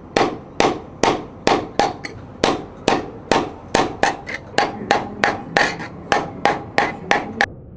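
Hand hammer striking a sheet of gold being shaped into a cup. About twenty sharp strikes come in a steady rhythm of two to three a second, each with a short ring, and stop near the end.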